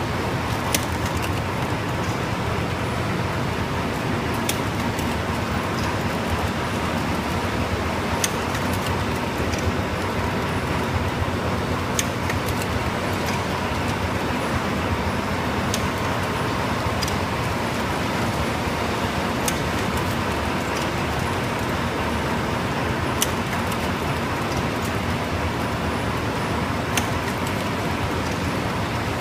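Full-auto baby wet wipe production line running: a steady machine hum and clatter with a faint whine, and a sharp click about every four seconds.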